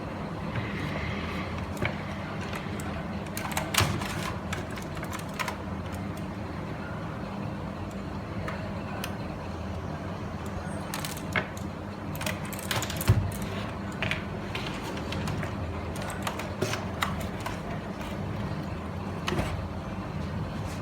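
Scattered, irregular clicks and taps from a gaming keyboard being handled, over a steady low hum.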